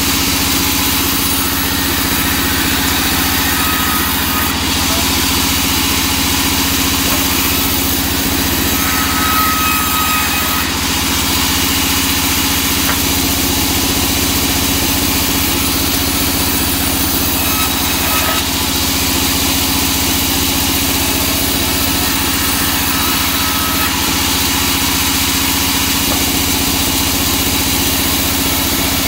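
Large vertical band saw running while it rips a teak slab lengthwise. The sound is a loud, unbroken hum with a hiss over it.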